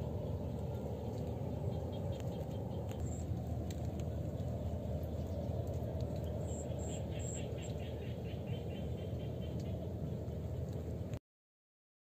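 Outdoor ambience: a steady low rushing noise with faint runs of quick bird chirps, about three seconds in and again past the middle. All sound cuts off abruptly about a second before the end.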